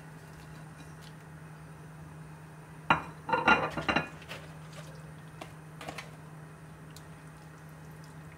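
Ceramic plate and ingredients clinking and knocking against a stainless steel stockpot as garlic cloves, sliced root and herbs are tipped into the water: a cluster of sharp strikes lasting about a second, about three seconds in, then a few lighter clicks. A steady low hum runs underneath.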